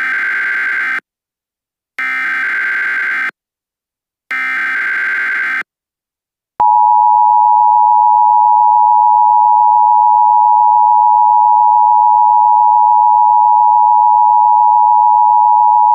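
Emergency Alert System tones: three short bursts of SAME digital header data, each about a second long with a second's gap between them, then the steady two-tone EAS attention signal, sounding for about ten seconds. The tones mark the start of a new emergency alert.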